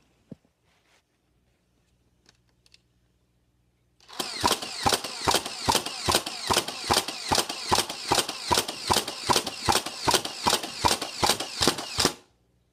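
Nerf Stampede blaster firing fully automatic: its battery-driven mechanism runs continuously with an even rhythm of dart shots, a bit over two a second, emptying the 18-dart clip. It starts about four seconds in and cuts off suddenly near the end.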